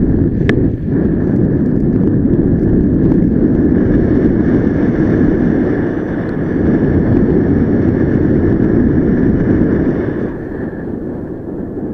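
Airflow buffeting the microphone in paragliding flight: a dense, rough wind rush with a steady higher hum over it. There is a sharp click about half a second in, and the rush eases about ten seconds in.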